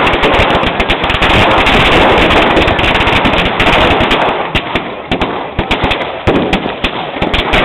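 A string of firecrackers going off, a rapid dense run of sharp bangs that thins briefly about five to six seconds in before picking up again.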